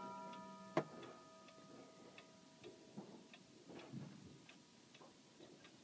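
Faint, even ticking of a 31-day pendulum regulator wall clock, about two to three ticks a second. The ringing of its strike is fading away at the start, and there is one sharper click just under a second in.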